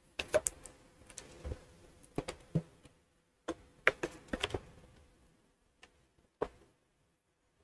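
Irregular sharp clicks and taps, some single and some in quick clusters of two or three, with short quiet gaps between them, over a faint steady hum.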